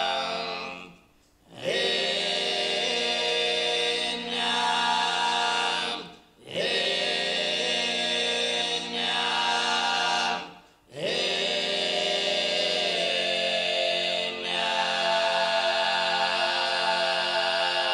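Sardinian canto a tenore: four men's voices singing a cappella in close harmony in the 'voche notte antica' style, with the guttural throat-sung bassu and contra under the lead voice. The chords are sustained and break off three times for short pauses between phrases, each new phrase sliding up into its chord.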